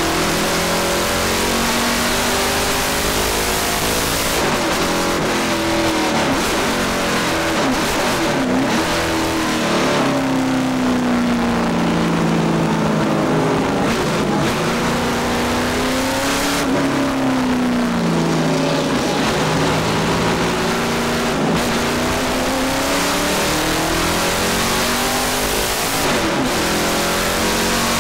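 Ford Boss 302 small-block V8 of a 1970 Bud Moore Trans Am Mustang, heard from inside the cockpit at racing speed. The revs climb, drop away and climb again through a series of corners, over steady cabin and road rush.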